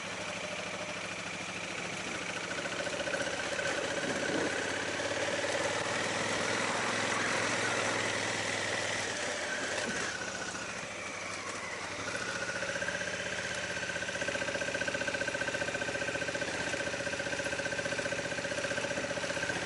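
Honda Africa Twin's parallel-twin engine running steadily while riding over a dirt track, with wind and road noise under it. The engine note drops briefly about ten seconds in, then picks up and holds steady again.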